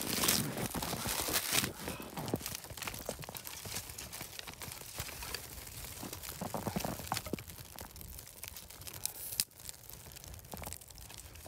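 Small kindling fire catching in birch bark and dry twigs, crackling and popping, mixed with the dry rustle and clatter of sticks being laid on. The crackles and rustles are loudest and densest in the first two seconds, then thin out.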